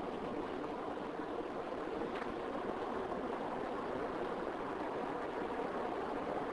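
Steady road noise of a car driving, heard from inside the car: an even rush of tyres on tarmac and engine hum.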